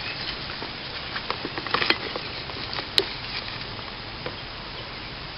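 Light clicks and taps of small parts and packaging being handled, a cluster about a second and a half in and one sharper click about three seconds in, over a steady background hiss.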